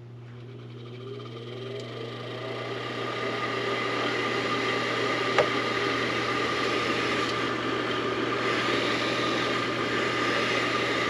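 Coleman Presidential II furnace combustion fan motor switched on: a mains hum starts at once and the motor spins up slowly, rising in pitch and loudness over about four seconds, then runs steadily. It is slow to get going, a sluggish start. A single sharp click comes about five seconds in.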